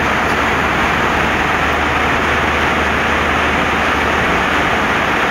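Steady cabin noise inside an Airbus A319 airliner: an even rush of air with a low engine hum underneath.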